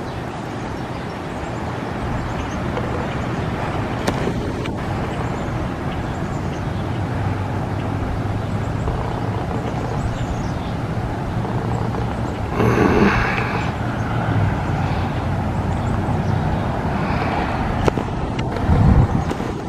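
Steady outdoor rumble with a faint low hum, and a brief louder rush about thirteen seconds in.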